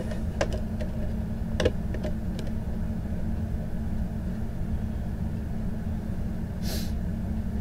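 A steady low hum, with a few light clicks and a short rustle as an opened Blu-ray steelbook is handled and its disc lifted out of the tray.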